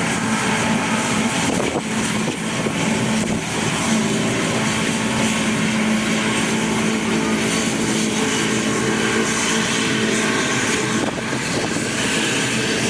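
Large farm machine's engine running steadily under load, a continuous drone with a low hum.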